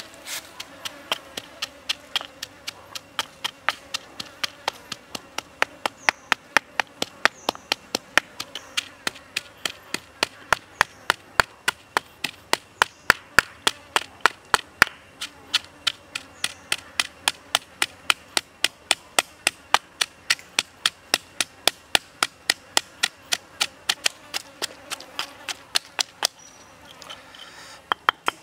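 Wooden pestle pounding chilies, shallots and salt in a stone mortar: a steady run of sharp knocks, about three a second, thinning out near the end.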